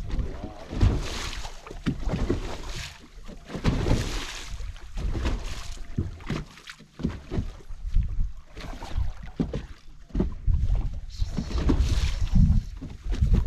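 Wind buffeting the microphone in irregular gusts, with choppy water slapping against the hull of a fishing boat.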